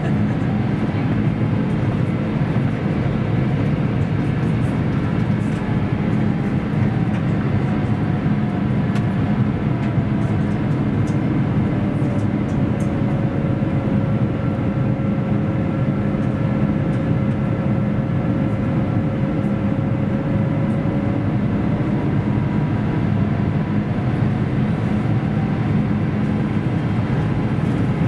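Airbus A350 cabin noise heard beside the wing: a steady rush of Rolls-Royce Trent XWB turbofans and airflow during the descent. A faint engine whine sags a little in pitch midway and climbs back near the end.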